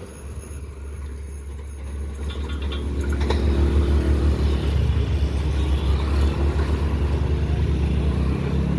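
Low vehicle rumble that grows louder after about two seconds, with a single sharp click a little past three seconds.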